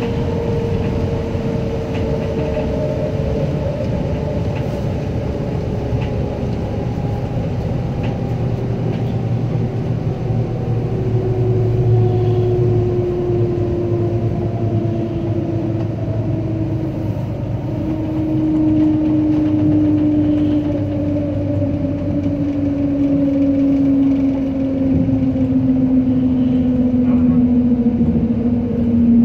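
Shanghai Transrapid maglev train heard from the driver's cab: a steady rumble and rushing noise with whining tones that fall slowly in pitch as the train slows down on its approach to a station.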